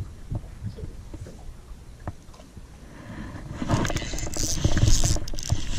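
Scattered soft knocks of rod and gear handling. From about three and a half seconds in, a louder rushing, hissing noise builds as a hooked bass thrashes at the water's surface.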